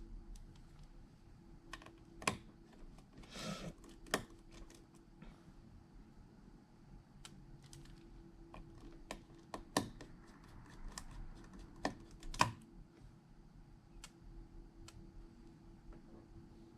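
Light, irregular clicks and taps of small tools and parts during a phone repair, with a short scraping rasp about three and a half seconds in, over a faint steady hum.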